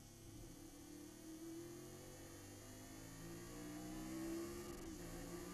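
Chevrolet Nova race car's engine heard from inside the cockpit, a steady drone through a slow corner that rises in pitch over the second half as the car accelerates out.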